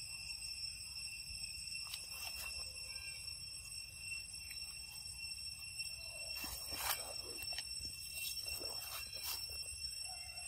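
Steady high-pitched buzzing of forest insects, with a few short knocks and rustles, the loudest about seven seconds in.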